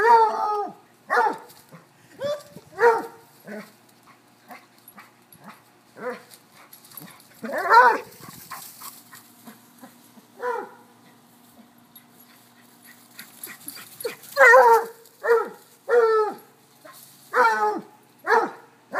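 Dog play-barking while chasing: about a dozen short barks, several in quick runs near the start and again from about fourteen seconds in, with one longer bark about eight seconds in.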